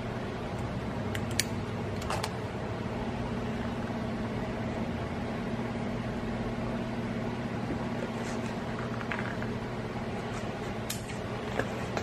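Steady low mechanical hum, with a few light metallic clicks: two about a second or two in and two more near the end, as the steel hooks on a leather apron are handled.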